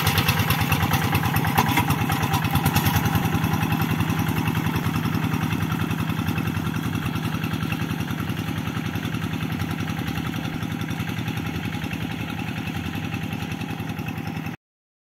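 Kubota two-wheel hand tractor's single-cylinder diesel engine chugging steadily under plowing load, growing slowly fainter as it pulls away. The sound cuts off suddenly just before the end.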